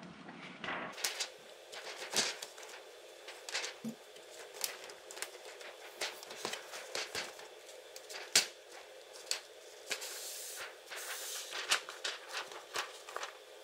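Konica Minolta C3070 intermediate transfer belt being worked off its transfer unit by hand: scattered light clicks and taps of plastic and metal parts, with a short sliding rustle about ten seconds in.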